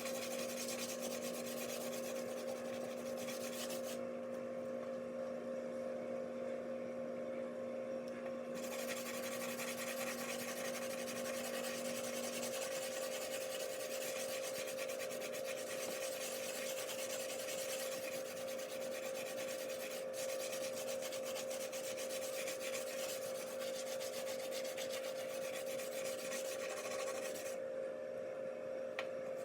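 A dishwasher tablet scrubbed against oven door glass: a continuous scratchy rubbing, pausing briefly about four seconds in and again near the end. A steady hum runs underneath, with a lower part of it stopping about twelve seconds in.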